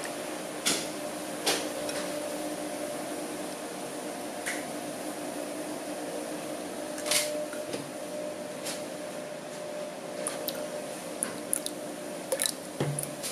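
Thick green slime mixture being stirred with a flat stick in a glass bowl: wet squishing, with a few sharp taps of the stick on the glass. Near the end comes a run of small clicks and drips as liquid activator is squeezed in from a plastic bottle.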